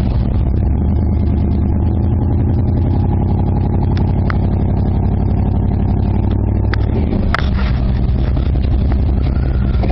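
Pickup truck engine running steadily under load as the truck pushes its front tyre up onto a pile of wood chips. The engine note changes briefly about seven seconds in, with a sharp click or two.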